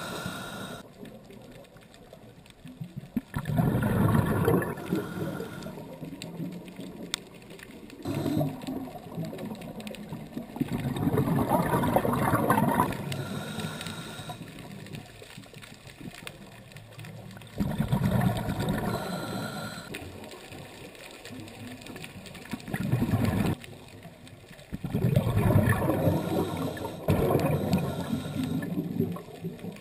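Scuba diver's regulator breathing heard underwater: a gurgling rush of exhaled bubbles about every seven seconds, four times, with quieter water noise between.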